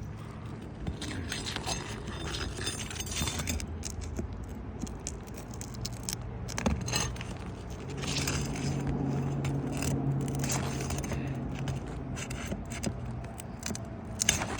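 Loose roofing nails jingling and rattling as they are handled, with the scraping of stiff asphalt shingles and a couple of sharper knocks. A steady low hum runs through the middle.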